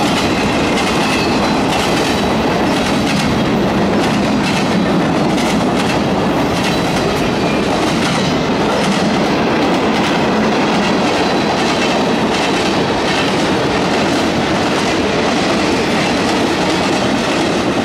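A mixed freight train's cars (boxcars, a covered hopper, tank cars) rolling steadily past at close range: a continuous rumble with the clickety-clack of wheels over the rail joints.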